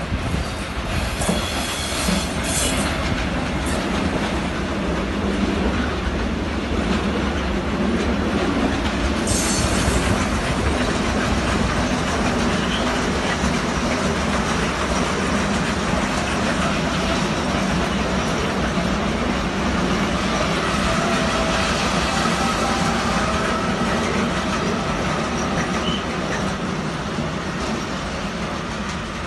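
A train running past on the track, with a steady rumble of wheels on the rails. Short bursts of high wheel squeal come about a second in and again about nine seconds in.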